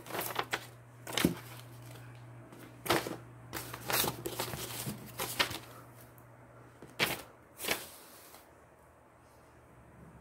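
Paper sheets rustling and being shuffled as they are pulled from behind a wooden furniture frame, with about ten sharp scrapes and knocks against the wood, over a steady low hum.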